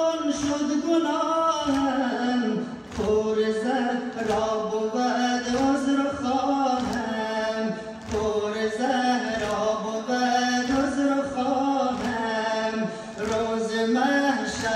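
Voices chant a Shia nawha (Muharram lament) in a sustained, wavering melody. A steady beat of thumps from chest-beating (sinezani) runs under the chant.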